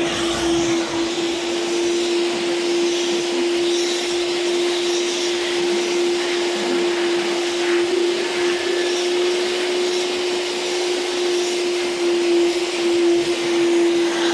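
Eurotech twin-motor industrial vacuum cleaner running steadily: a constant hum over a rushing hiss of air.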